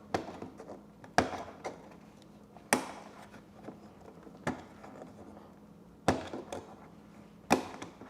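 A small metal tool knocking and clicking against the plastic push pin and fairing panel of a motorcycle, about six sharp knocks with short rattles after each, as the pin is pushed out to free the panel.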